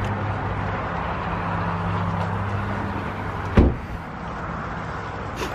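Steady low hum of a vehicle engine running, then a single car door slammed shut about three and a half seconds in.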